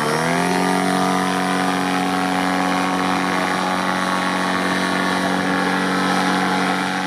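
Tandem paramotor's engine and propeller running steadily under power. Its pitch dips, then rises within the first half second and holds a steady note.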